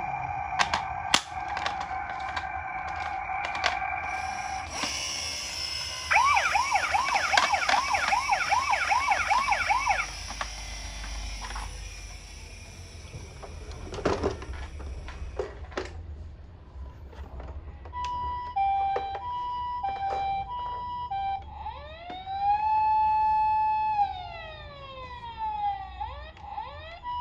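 Electronic siren sounds from toy ambulances, one after another. First comes a steady tone, then about a second in a fast yelping siren over a hiss. After some sharp clicks and knocks, a high-low two-tone siren plays, then a rising, held and falling wail, then the two-tone again.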